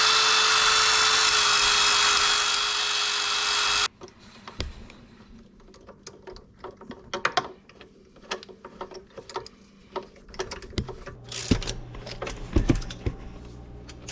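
Small power tool running steadily for about four seconds as it cleans a golf cart engine's spark plug, then stopping suddenly. Scattered clicks and knocks of parts being handled follow.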